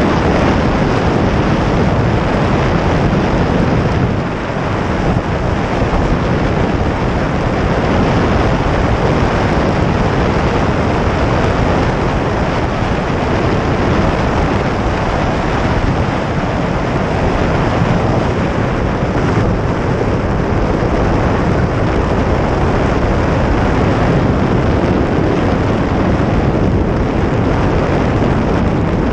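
Steady rush of wind noise over an onboard camera and the rolling rumble of a gravity-powered soapbox cart's wheels on asphalt at speed, with no engine.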